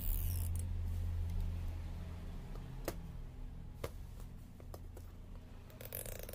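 Fingers handling a smartphone's battery adhesive pull tab and its open frame: light rustling and scraping, with two sharp clicks about three and four seconds in, over a low steady hum.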